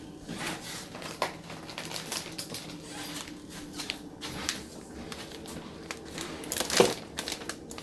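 Kitchen handling sounds during pizza making: scattered light clicks and scrapes of utensils and containers over a steady low hum, with one louder knock near the end.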